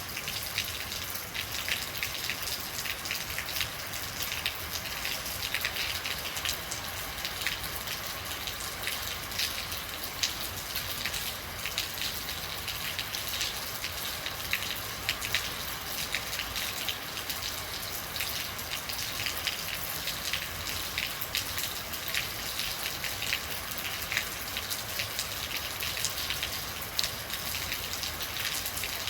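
Steady rain falling, with many individual drops ticking close by on a hard surface.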